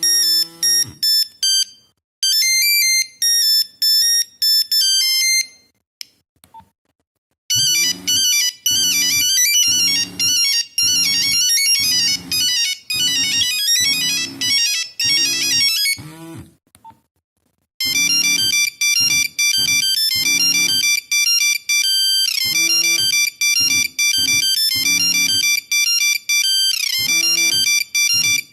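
Nokia 3410 mobile phone playing its built-in monophonic ringtones one after another: bright, beeping single-note melodies. Several tunes are separated by short silent pauses about six seconds in and again about sixteen seconds in, and one tune near the end has a quick falling sweep.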